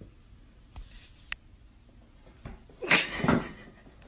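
A pet sneezing once, a sudden sharp burst about three seconds in.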